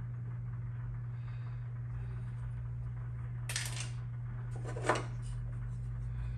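Two short metallic clinks about a second and a half apart, the second louder, from hand tools being handled while working on a small wire connector, over a steady low hum.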